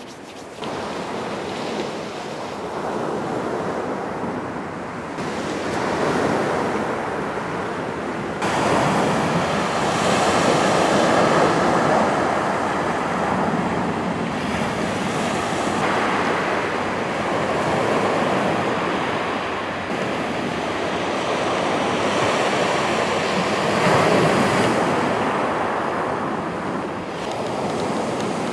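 Sea waves breaking and washing up a shingle beach, the surf swelling and easing every few seconds, with some wind on the microphone.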